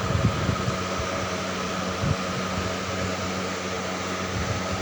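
Steady hum and hiss of a running fan filling the room, with a couple of soft low knocks.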